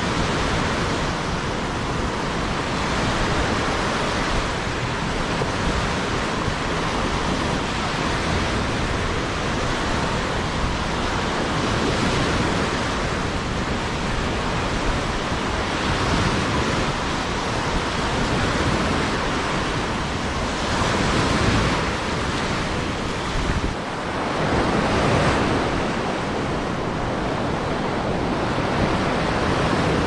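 Sea surf washing on the shore with wind on the microphone, a steady rush that swells louder twice in the second half.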